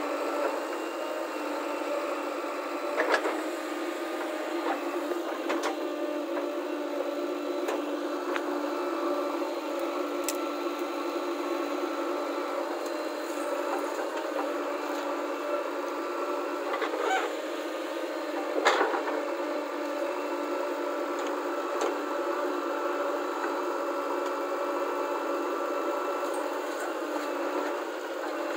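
JCB 3DX backhoe loader's diesel engine running steadily while the rear arm digs and loads soil. A few sharp knocks stand out, the loudest about two-thirds of the way through.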